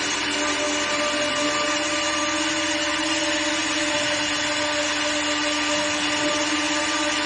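Automatic tool-change CNC lathe running steadily, its motor whine mixed with the hiss of the workpiece being machined or sanded. The whine steps up slightly in pitch about one and a half seconds in.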